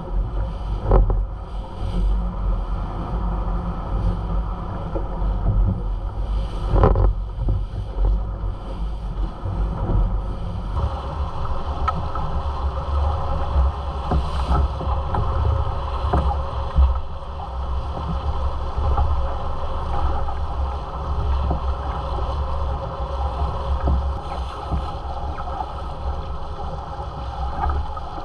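Wind buffeting the microphone over the rush and splash of water along the hull of a small sailboat under sail. A few brief knocks or splashes stand out.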